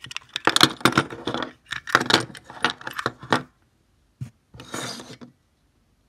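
Metal Wordlock letter-combination padlock being pulled open in the hand, its shackle and body rattling and clicking for about three and a half seconds. After a pause there is a single knock, then a short scrape as the lock is set down on a wooden tabletop.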